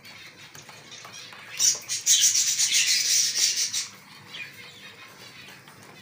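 Pigeons in a wire breeding cage stirring and pecking at freshly put-down grain: a short burst, then about two seconds of dense, scratchy rustling with fine rapid ticks that fades out.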